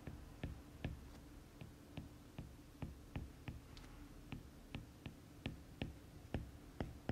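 Faint, short taps of a stylus on a tablet screen while words are handwritten, a few taps a second over a low steady hum.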